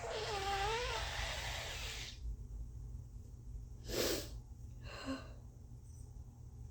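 A person with a congested nose, which she takes for a slight cold, gives a long, wet nose blow with a wavering honking tone lasting about two seconds. About four seconds in comes a short sharp burst of breath through the nose, and a second later a brief throaty cough.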